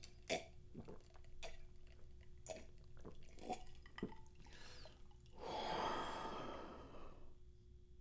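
A person gulping water from a glass: a string of about six swallows, then a long breathy exhale about five seconds in.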